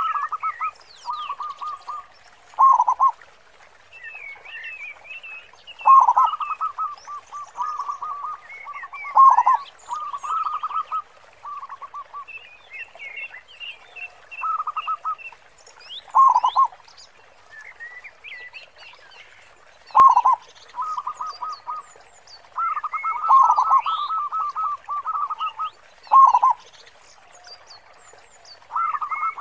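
Zebra dove (perkutut) cooing over and over: phrases of quick staccato coos, each carrying a loud, big 'khung' note, repeated every few seconds. Small birds chirp faintly at a higher pitch between the phrases.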